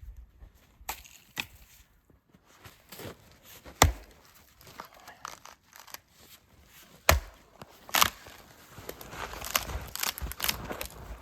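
Gransfors Bruks Small Forest axe chopping dead wood: a few sharp strikes a few seconds apart, then crackling and tearing of wood fibres near the end.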